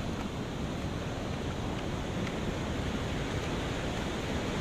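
Steady wash of sea surf breaking against rocks, with wind rumbling on the microphone.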